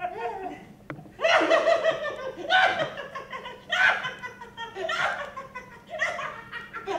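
A man laughing hard while being tickled, in repeated loud fits about once a second.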